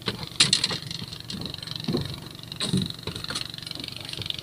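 Steady noise of a small boat on the open sea, with a few sharp knocks and clicks from the boat and fishing gear.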